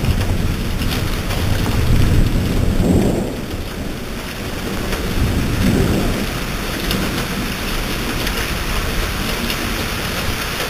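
Thunder rumbling over steady rain, loudest about two to three seconds in, then a second, softer rumble about halfway through.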